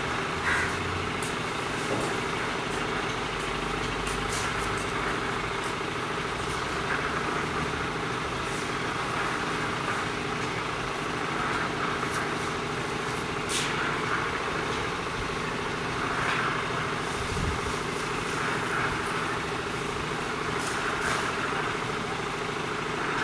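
A running engine droning steadily, with a few faint clicks.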